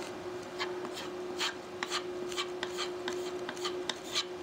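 Putty knife scraping wood putty into a gap along a wooden cabinet edge, in short, uneven strokes about two or three a second.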